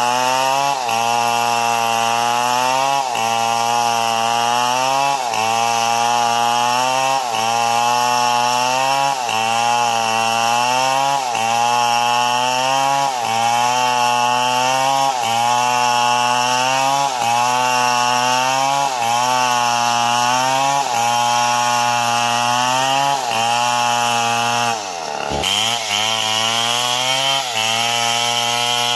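Stihl MS 070 large two-stroke chainsaw running at high revs while cutting wood, its engine pitch sagging under load and recovering in a regular cycle about every two seconds. About three quarters of the way through the pitch drops sharply, then picks back up.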